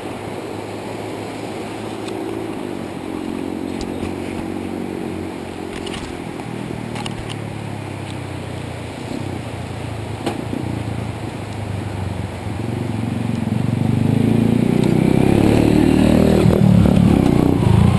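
Motorcycle engine running while riding. It grows louder about two-thirds of the way in as the engine picks up.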